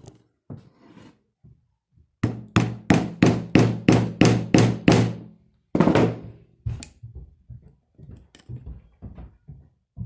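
Hammer blows in the axe-repair work: a quick run of about ten sharp strikes, about three a second, then one heavier blow and a series of lighter taps.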